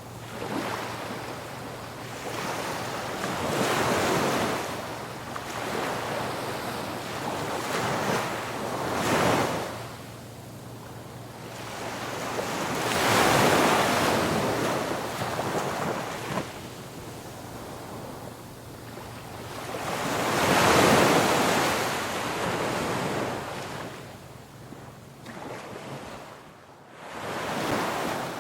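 Ocean waves breaking on a beach, each wave swelling into a hissing crash and then washing back, several times over; the biggest breaks come about halfway through and again two-thirds of the way in.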